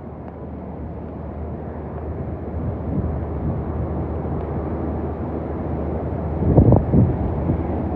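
Hurricane wind blowing steadily, building in strength over the first few seconds, with a stronger low rumbling gust about six and a half seconds in.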